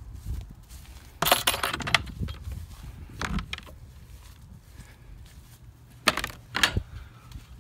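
Metal door latch hardware on a shed door being handled: a longer clatter a little over a second in, a shorter one near the middle, and two sharp latch clicks near the end.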